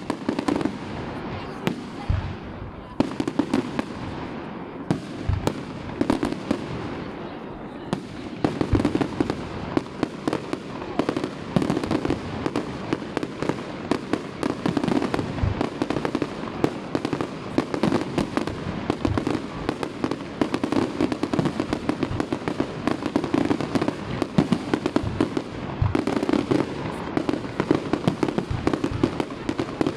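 Aerial firework shells bursting in a display, a string of sharp bangs that comes thicker and faster after about eight seconds.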